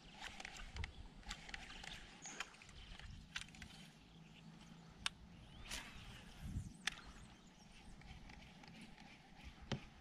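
Faint, scattered sharp clicks and light knocks of fishing tackle and the kayak hull as a lure is retrieved, over a quiet background, with one duller thump a little past halfway.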